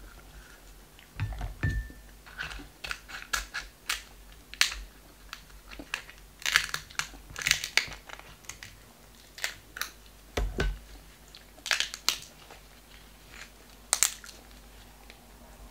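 Cooked king crab leg shells being cracked and snipped open with kitchen shears and gloved hands: irregular sharp cracks, snaps and crinkles, with a couple of dull thumps.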